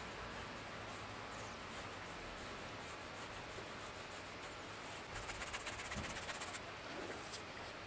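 Oil paintbrush scrubbing paint onto a canvas, played at double speed: a quick run of scratchy strokes about five seconds in, over a steady background hiss.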